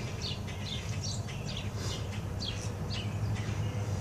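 A bird calling over and over, short falling chirps about two a second, over a steady low hum.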